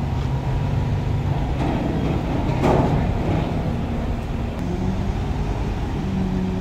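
Heavy container truck's diesel engine running steadily with a low hum. A brief louder rush of noise comes a little before the middle.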